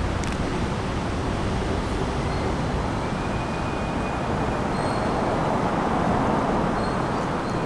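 NYC Subway G train pulling slowly into the station: a steady rumble of wheels on rail, with faint high wheel squeals coming in from about three seconds in and growing near the end.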